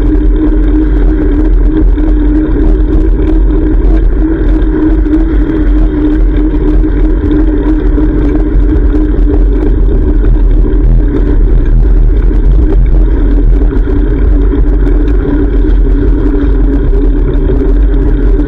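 Steady, loud rumble of wind and road noise on a GoPro action camera's microphone while cycling, with a constant low hum.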